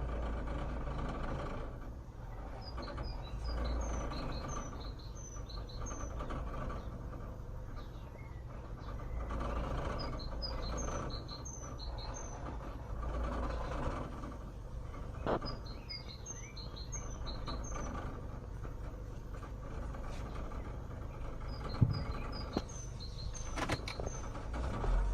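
Mazda Premacy 1.8 inline-four petrol engine idling roughly in drive with the brake held, its low hum rising and falling a little. The rough idle comes from a cracked air intake letting in unmetered air. Birds chirp in short bursts in the background.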